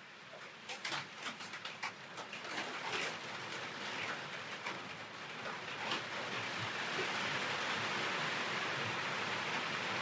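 Rain starting: scattered drops ticking at first, then a steady hiss of rain that builds over the first several seconds and holds.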